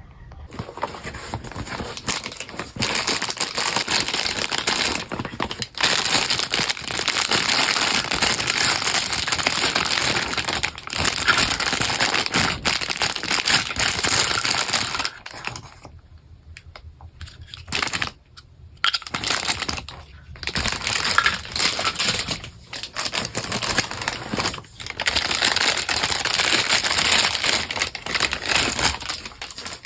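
Packaging crinkling and rustling as a boxed toy set is unwrapped, in long stretches broken by short pauses.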